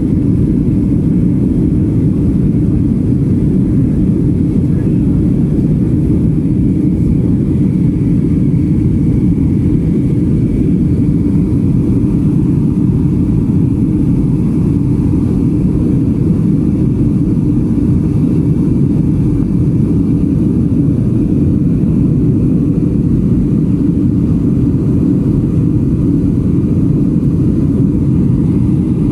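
Jet airliner cabin noise in flight: a steady low rumble of the engines and rushing air, even and unchanging throughout.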